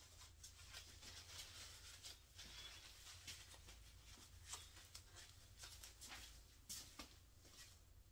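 Near silence: room tone with a steady low hum and faint, scattered light ticks and rustles.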